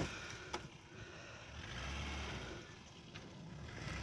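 Faint low rumble of a vehicle engine running, with a light click about half a second in and another near three seconds.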